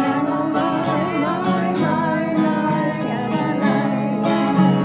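Acoustic guitar being strummed, with a singing voice wavering above it.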